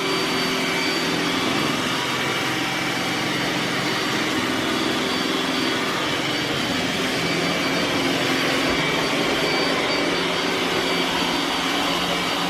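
iRobot Roomba s9+ robot vacuum running on max power: a steady suction fan and brush drone with a thin high whine.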